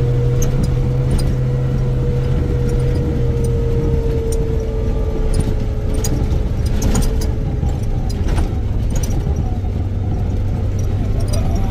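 A vehicle running steadily, a low hum with a steady whine above it, with scattered light ticks.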